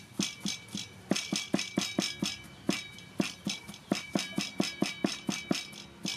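Steel cleaver chopping garlic on a thick round wooden chopping block: quick, even knocks, about four a second, each with a short metallic ring from the blade. The chopping pauses briefly a little over two seconds in.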